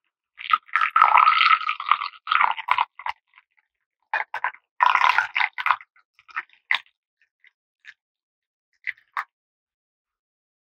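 Irregular bursts of crisp crunching and cutting sounds from food preparation, with dead silence between them.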